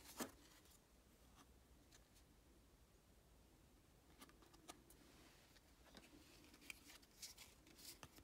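Quiet handling of a stack of stiff calendar cards being shuffled and slid against each other: a sharp click right at the start, then light taps and rustling through the second half.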